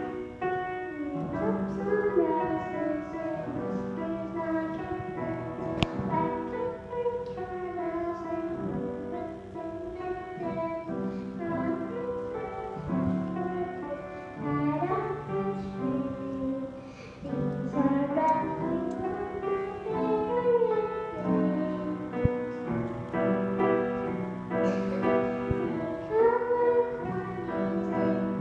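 A young girl singing a song into a microphone over musical accompaniment, her voice holding and bending long notes.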